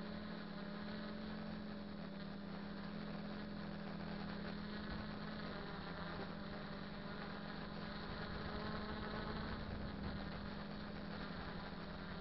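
Quadcopter's four 2212 1000KV brushless motors and propellers running steadily in flight, a constant hum with fainter higher tones that drift slightly in pitch, heard through the onboard camera's microphone.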